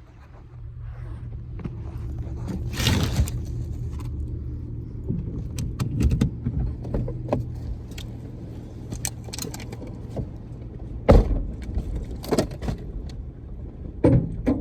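A vehicle engine idling with a steady low hum, with jangling keys and scattered clicks and rattles; a loud knock about eleven seconds in, after which the hum drops away.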